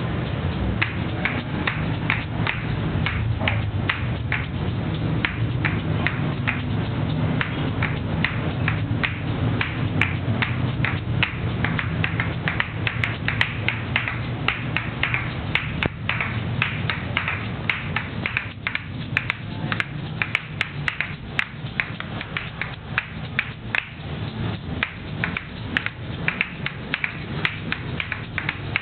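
Asalato (paćika), two small seed-filled shells on a cord, played fast: the shells clack against each other in a quick, driving rhythm of sharp clicks, with the seeds rattling between strokes. A low steady hum lies underneath, fading about halfway.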